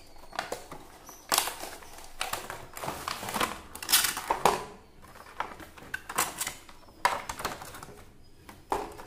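Cardboard box and moulded plastic packaging tray being handled as the box is opened and the tray slid out. An irregular run of scrapes, rustles and clicks, with the loudest handling noises a little after a second in, near the middle and near the end.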